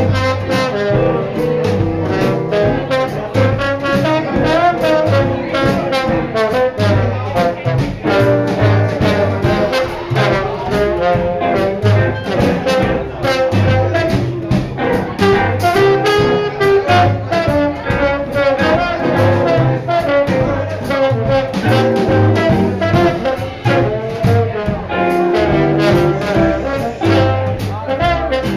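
Swing band playing jazz with brass horns (trombone and trumpet) over a steady beat of bass and drums.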